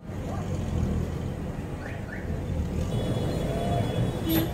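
Steady low rumble of background noise, with two faint short rising chirps about halfway through and a sharp click near the end.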